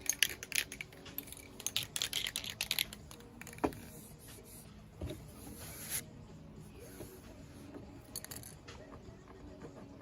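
Small objects being handled: a quick run of clicks and rustles for about three seconds, then a single sharp knock and a couple of softer thumps.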